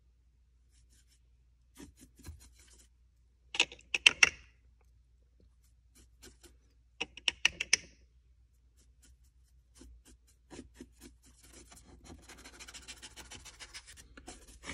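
Stiff brush scrubbing dark weathering color onto a hydrocal plaster model street: several bursts of quick, short scratchy strokes, the loudest about four seconds in and again near eight seconds, then a steadier run of scrubbing near the end.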